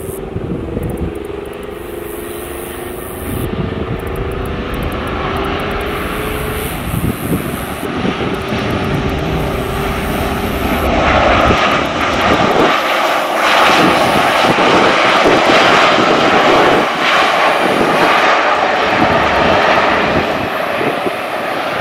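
Boeing 737-800's CFM56 jet engines just after touchdown: a falling whine over a low rumble, then, about halfway through, a louder steady jet noise with a held tone as the airliner rolls out along the runway.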